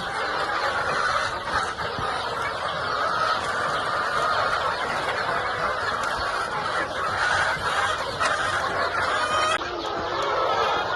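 A flock of laying hens clucking and calling, many birds at once in a dense, steady chatter.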